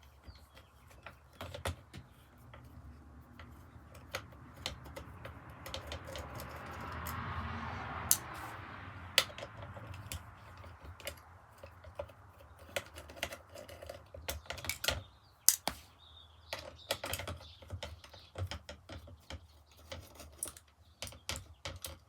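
Irregular small clicks and taps of a screwdriver and screws being taken out of a Kirby Sentria 2 vacuum's headlight housing, with a soft rasping swell in the middle.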